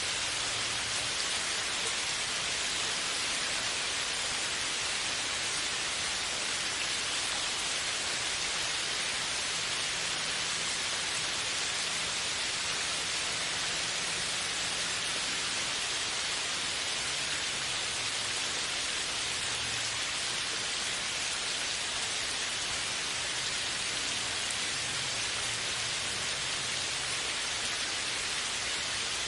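Steady rain: an even, continuous hiss of falling rain with no single drops or gusts standing out.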